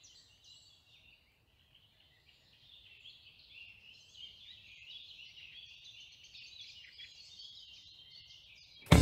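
Faint chorus of songbirds chirping and twittering in woodland. It thins almost to nothing about a second in, then fills back in. Guitar music cuts in at the very end.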